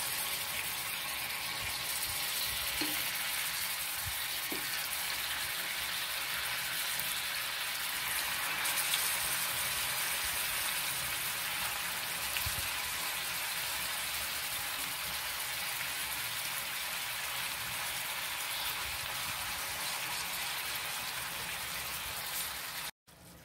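Marinated chicken pieces sizzling steadily in hot butter and oil in a stainless steel frying pan, with a few soft knocks as more pieces are laid in. The sizzle cuts off suddenly near the end.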